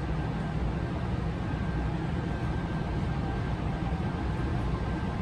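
Steady low rumble and hum inside a Yui Rail 1000-series monorail car, with a faint steady high whine.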